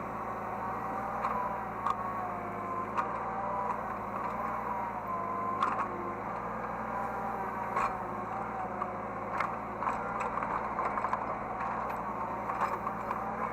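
Hydraulic excavator working: the diesel engine runs steadily under a hydraulic whine that wavers up and down in pitch as the controls are moved. Scattered clanks and scrapes come through every second or two.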